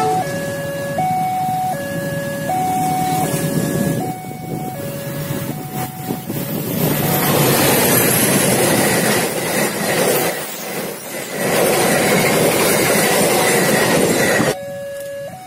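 A two-tone railway level-crossing alarm sounds, its high and low notes swapping about every 0.8 s. About six seconds in, the rumble and rattle of a parcel train's wagons passing close by rises and drowns it out. Near the end the train noise cuts off suddenly and the two-tone alarm is heard again.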